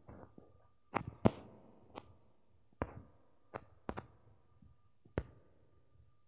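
Fingertip taps on a phone's touchscreen: about eight sharp, irregular taps, the loudest a little over a second in.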